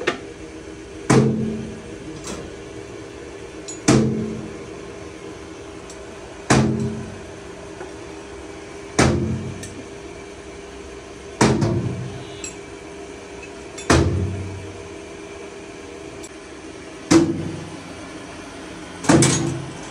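A heavy clunk about every two and a half seconds, each one ringing briefly with a low tone as it dies away, over a steady hum.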